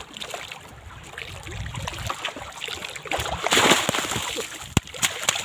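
Water lapping and splashing around a small fishing boat, with a louder rush of splashing about three and a half seconds in and a few sharp knocks near the end.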